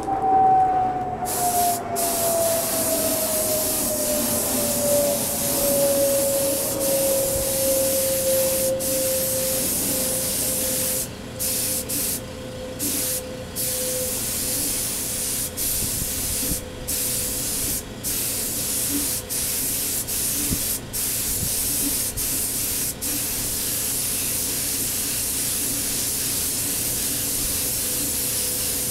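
Gravity-feed air spray gun spraying clear coat laced with silver flake: a steady hiss of air and paint, cut by about ten brief trigger releases in the middle stretch. A steady tone underneath slides down in pitch over the first several seconds and then holds.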